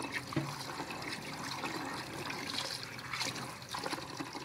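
Tap water pouring and trickling into a bamboo basket of soaked black beans, splashing as a hand stirs the beans to rinse them clean.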